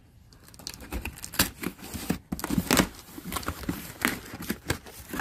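Packaging being handled in a cardboard box: crinkling and rustling with scattered knocks and taps at uneven intervals.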